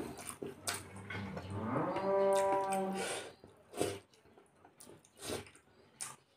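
A cow moos once, in a long call that rises at the start and is then held for about a second and a half. Around it come a few short wet clicks of chewing and lip-smacking from eating with the hands.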